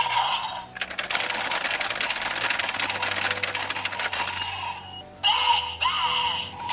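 Electronic sound effects from a Super Sentai toy gun set off by a Sentai Gear: a short chime, a rapid rattling run lasting a few seconds, then a warbling electronic tune after a brief break, played through the toy's small speaker.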